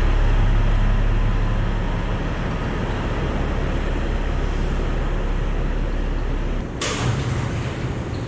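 Caterpillar 6NZ (3406E) heavy truck diesel running steadily with a deep low rumble, on freshly fitted exhaust manifold gaskets. About seven seconds in, a short hiss cuts in and the lowest rumble drops away.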